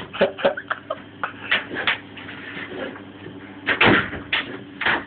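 A string of short knocks and clatters, like hard objects being bumped and handled, the loudest about four seconds in, over a faint steady hum.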